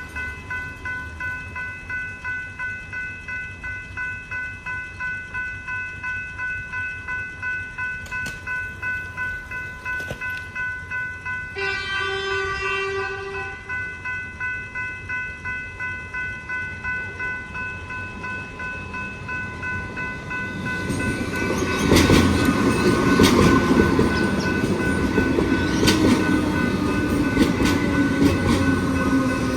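Level crossing bell ringing at a steady pace of about two strokes a second. About twelve seconds in, a train horn sounds for roughly two seconds. In the last third a train runs over the crossing with loud wheel clatter while the bell keeps ringing.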